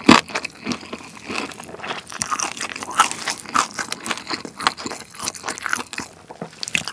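Biting and chewing the crisp roasted skin of a schweinshaxe (German pork hock): a dense run of sharp crunches and crackles, the loudest bite right at the start.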